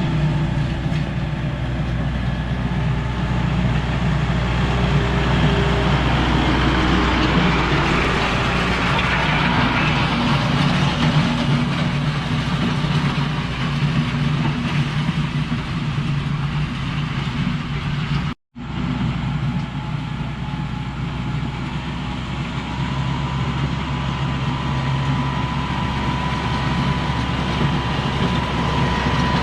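Heavy earthmoving equipment's engine running steadily while working the gravel driveway, with a wide rumble of machine and gravel noise. The sound drops out abruptly for a moment about 18 seconds in, then carries on.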